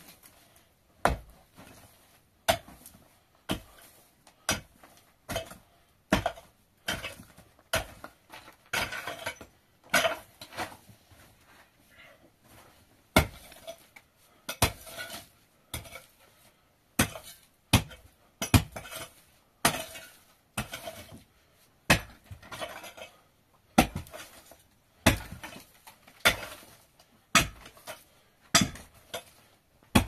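A series of sharp knocks or strikes, about one a second and irregularly spaced, each with a short ring after it.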